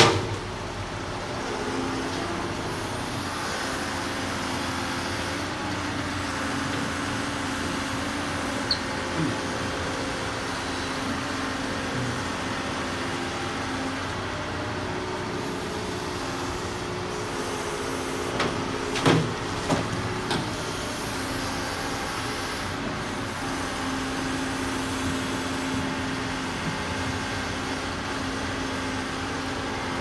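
Doosan crawler excavator's diesel engine running steadily under hydraulic load as it digs and loads soil. A few sharp clunks come close together about two-thirds of the way through.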